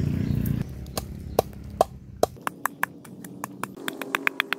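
Pestle pounding garlic, shallot and chili in a mortar: a few spaced, ringing knocks, then quicker even taps at about three to four a second from about halfway through.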